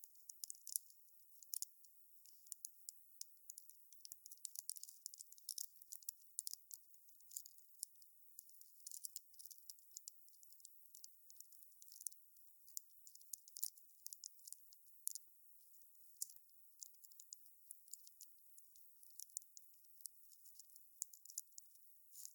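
Wood campfire crackling: many small sharp pops and snaps at irregular intervals, with a faint high hiss and no low roar.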